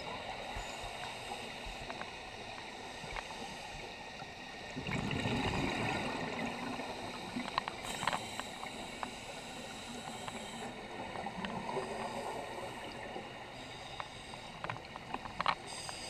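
Underwater sound of a scuba dive: a steady hiss with scattered small clicks, and a louder rush of exhaled bubbles from a diver's regulator about five seconds in.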